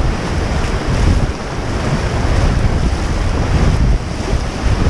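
Whitewater rushing around a raft running class 2–3 rapids, with wind buffeting the camera microphone as a heavy low rumble.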